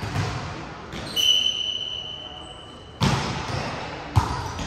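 Indoor volleyball play: several thumps of the ball being struck and hitting the floor, echoing in a large gym, with a steady high tone lasting a couple of seconds from about a second in.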